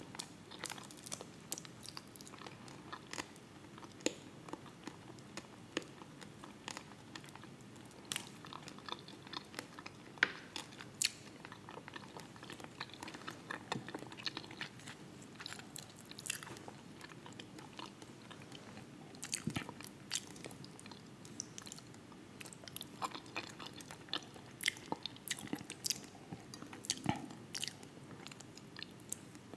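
Close-miked chewing and wet mouth clicks, irregular, from someone eating a plate of fried croaker fish, potatoes and red cabbage.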